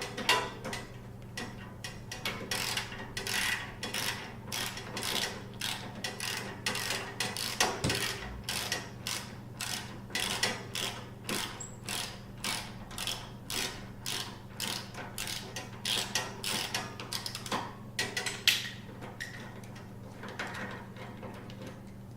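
Ratchet wrench with a 10 mm socket clicking in steady back-and-forth strokes, about two clicks a second, as a foot peg bolt is backed out; the clicking stops near the end.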